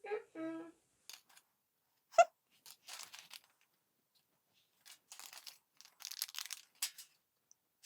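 Plastic packaging crinkling and rustling in short spells as the package contents are handled, with one sharp plastic knock about two seconds in.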